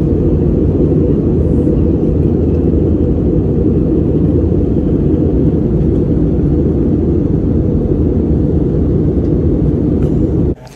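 Jet airliner cabin noise: a steady, deep rumble of engines and airflow heard from a window seat, cutting off suddenly near the end.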